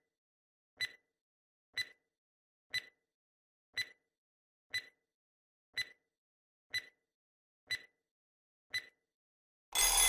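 A quiz countdown timer sound effect ticking once a second, then a loud, harsh burst of under a second near the end: the time's-up signal.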